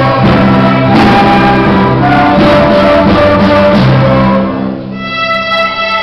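A youth orchestra of bowed strings and woodwinds playing a full-ensemble passage, loud and sustained; about five seconds in the sound thins to a few long held notes.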